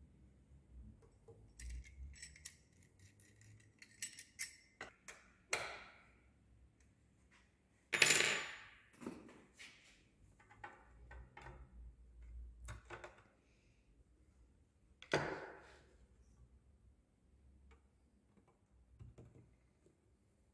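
Metal parts of a sewing machine thread stand clinking and knocking as they are fitted together, with scattered small clicks and taps. A sharp metallic clank about eight seconds in is the loudest, and there is another knock about fifteen seconds in.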